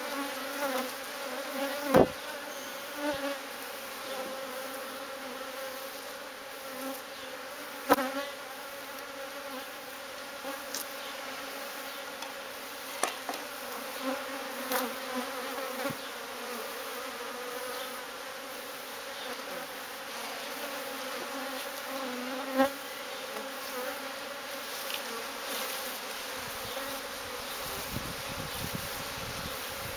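A honeybee colony buzzing as a steady, droning hum, with a few sharp knocks now and then.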